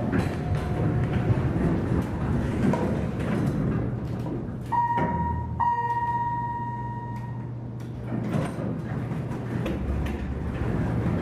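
Dover traction service/freight elevator's doors sliding open over a steady low hum, with the arrival chime ringing twice about five seconds in: a short ding, then a longer one.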